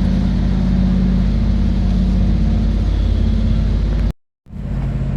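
Nissan Serena C23 engine idling steadily, an engine the mechanic is checking for a 'krotok-krotok' rattling noise and an oil leak. The sound cuts out completely for about half a second, a little after four seconds in, then resumes.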